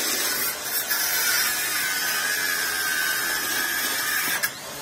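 A construction power tool running with a steady high whine that slowly drops in pitch over a dense hiss, broken by a sharp click and a brief dip near the end.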